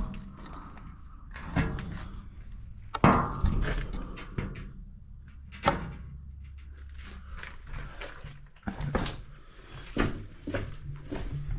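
A series of irregular thuds and knocks, a second or two apart, over a low rumble.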